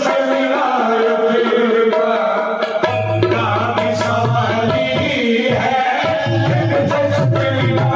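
Qawwali music: harmonium playing a held melody over tabla drumming.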